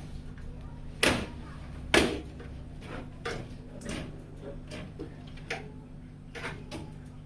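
Hands handling a PC case and its parts, making a string of clicks and knocks: two sharp knocks about one and two seconds in, then lighter clicks, over a steady low hum.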